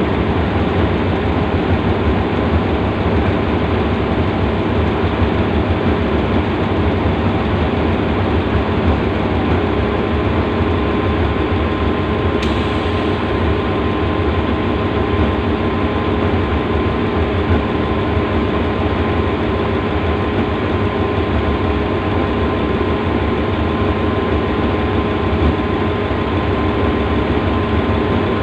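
Diesel-electric locomotive idling while standing still, a loud, steady, deep engine drone. About halfway through, a faint steady high tone joins in.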